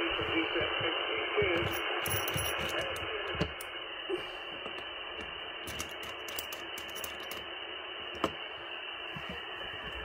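ATS25X1 HF receiver tuned to lower sideband on the 40-metre band, giving out a steady rush of static through its narrow audio passband. A faint, garbled sideband voice can be made out in the first three seconds or so, and a few sharp clicks come later.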